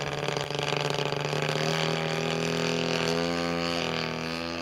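DLA 112cc twin-cylinder two-stroke gas engine and propeller of a 35% scale Pilot RC Extra 260 model plane in flight. The engine note climbs steadily in pitch for a couple of seconds, then drops about four seconds in.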